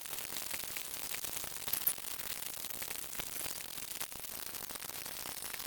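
Radio receiver static: a steady hiss with scattered faint crackles and clicks, with no broadcast voice coming through.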